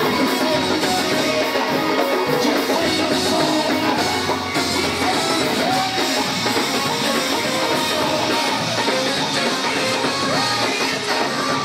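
Live gospel music from a church band, with drums, guitar and a Hammond organ, and a man singing into a microphone over it.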